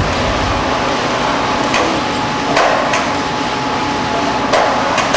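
Steady workshop machinery noise with a thin whine through the middle, broken by several sharp clanks and knocks as an electric chain hoist's lifting chains and a hanging timber flitch are handled.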